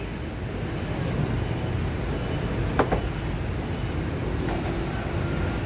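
Steady low rumble of background noise, with one sharp clink a little under three seconds in.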